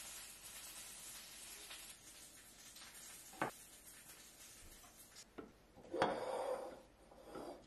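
Tableware being handled and set down on a table: a sharp click about three and a half seconds in, then a louder scraping clatter about six seconds in and a shorter one just after. A steady hiss underneath cuts off about five seconds in.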